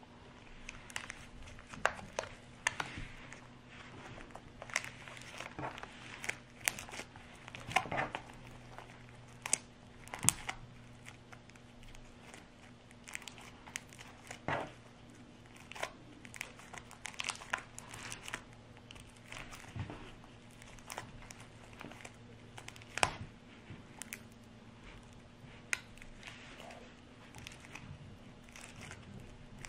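Hands squeezing pink slime and stuffing it into a latex balloon: irregular sticky clicks and crackles from the slime, with a faint steady hum underneath.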